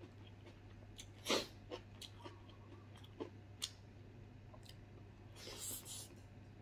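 Faint chewing and mouth clicks of a person eating with his hands, with one louder smack about a second in and a breathy rush near the end. A steady low hum runs underneath.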